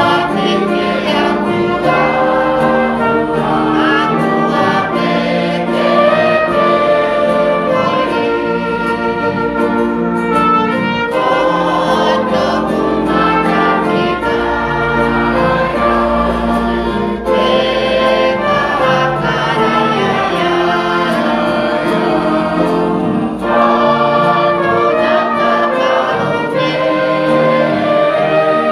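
Music: a choir singing over instrumental accompaniment.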